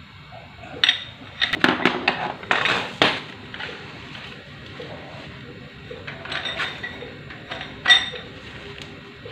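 Metal tools and engine parts clinking and knocking against each other, with a cluster of sharp clinks between about one and three seconds in and more around six to eight seconds.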